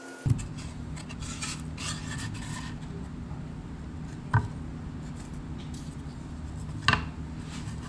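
Thin wooden cutouts being set down and slid into place on wooden boards: light rubbing and scraping, with two sharp taps about four and seven seconds in, over a steady low hum.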